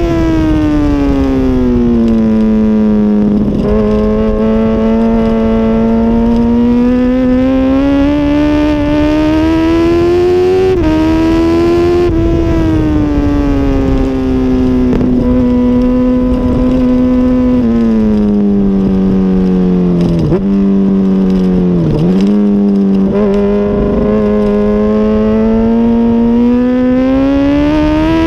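2006 Honda CBR1000RR's inline-four engine running hard on track, its pitch climbing slowly under throttle and dropping back as the rider rolls off between corners. There is a quick run of short dips in pitch about twenty seconds in.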